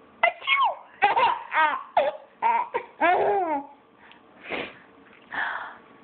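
A baby laughing: a quick run of short, high-pitched laughs that rise and fall in pitch, then two breathy bursts without pitch about four and a half and five and a half seconds in.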